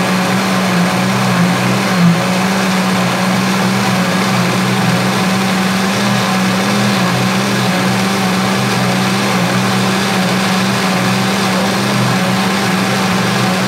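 Electric mixer grinder running steadily at full speed with a loud motor whine, its stainless-steel jar held down by hand, grinding cooked tomatoes into a smooth chutney paste.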